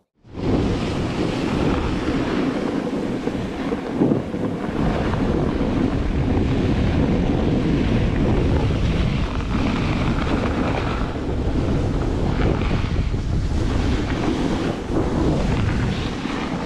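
Wind buffeting an action camera's microphone during a snowboard run, a loud, steady rushing noise that starts suddenly just after a brief gap at the start.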